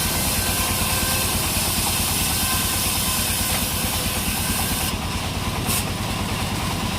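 An engine running steadily at idle, with an even low throb and a hissing top end. A brief high hiss comes about two-thirds of the way through.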